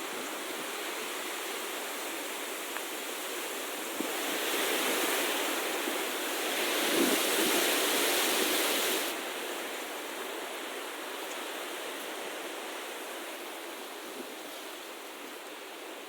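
Steady outdoor rushing noise that swells louder for about five seconds in the middle, then drops back suddenly.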